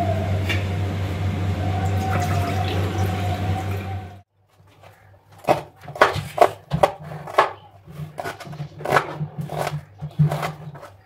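A steady, loud hum with a wavering tone over it, cutting off suddenly about four seconds in. Then a kitchen knife dices half an onion on a plastic cutting board: a dozen or so sharp chops at an uneven pace.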